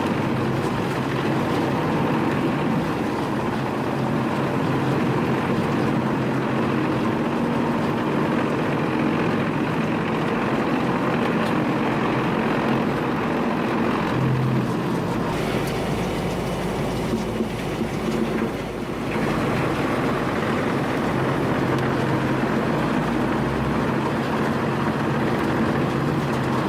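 Komptech Axtor 6010 industrial wood shredder running steadily under load as it shreds old wood, its heavy diesel engine droning throughout. The sound shifts briefly about two-thirds of the way through.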